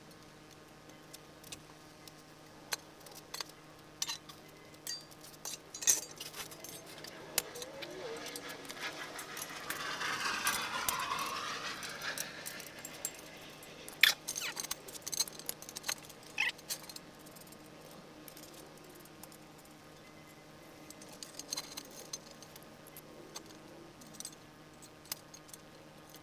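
Scattered metallic clinks and taps of bolts, hardware and hand tools being handled while a hydraulic press is assembled, with a longer scraping noise about ten seconds in, over a faint steady hum.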